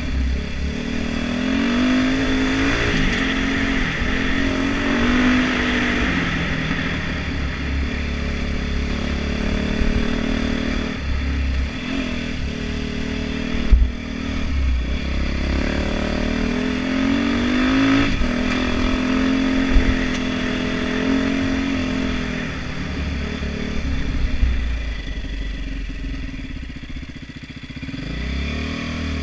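Dirt bike engine revving up and falling back again and again as it is ridden, with knocks and clatter from the bike over the bumps. It eases off near the end, then picks up again.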